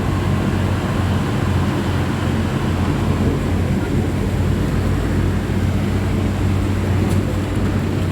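Commuter train running, heard from inside the carriage: a steady low hum over a rumbling rush of noise.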